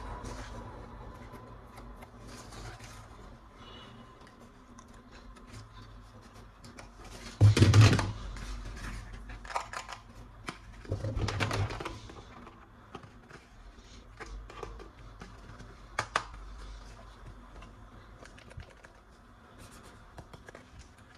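Hard plastic toy gun parts being handled and clicked, with scattered light clicks, two louder bursts of handling noise about 7 and 11 seconds in, and a sharp click later on.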